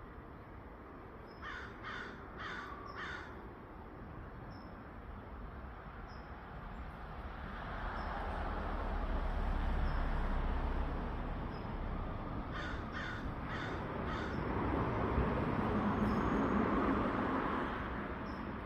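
A bird calling in two series of four quick calls, one about two seconds in and one about thirteen seconds in, over a steady rushing background noise that swells twice.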